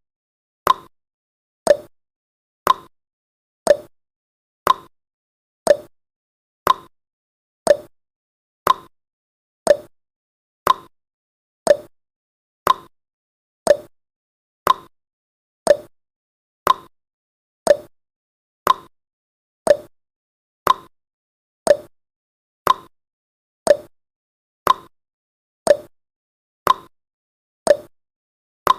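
Countdown timer's tick sound effect: short, sharp clock-like ticks, evenly spaced at one per second, with silence between them.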